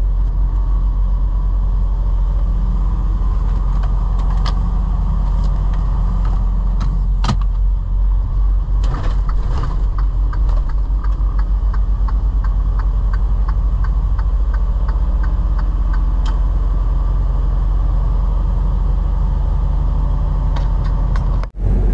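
Semi truck's diesel engine and road noise heard from inside the cab as the truck pulls away and gathers speed, a steady low drone with a run of light, regular ticks in the middle.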